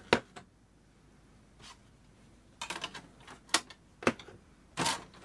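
Plastic clicks and knocks from the open front-loading CD tray of a Panasonic RX-DS28 portable stereo as a disc is set into it by hand, with a sharp click just after the start and a short, slightly longer clatter near the end as the tray is closed.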